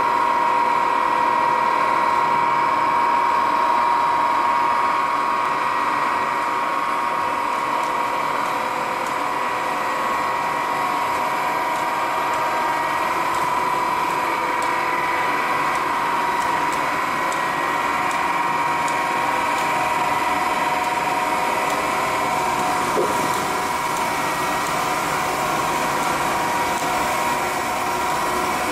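HDPE pipe extrusion line running: a steady drone of factory machinery with a constant high whine over it.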